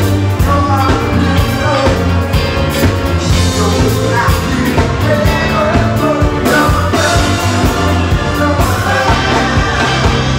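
Live funk and soul band playing with a lead vocal: electric bass, electric guitar, saxophones, drum kit and congas over a steady beat.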